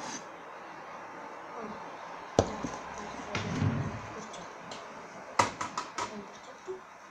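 A sharp knock, then a quick run of clicks and taps a few seconds later, as kitchen things are handled and set down on a table.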